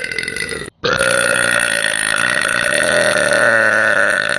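Two long, loud burps from a woman. The first cuts off abruptly under a second in; the second starts right after and is held for several seconds.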